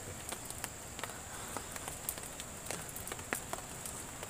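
Quiet forest ambience: a steady high-pitched insect drone, with scattered small clicks and crackles.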